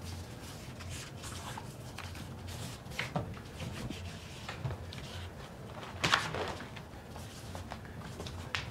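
Scattered light knocks and clicks over a low steady hum, the loudest knocks about three and six seconds in.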